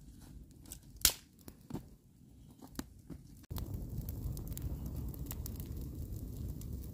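Scattered small clicks and one sharp snap about a second in. A little past halfway it cuts suddenly to a wood fire burning, a steady low rumble with crackling.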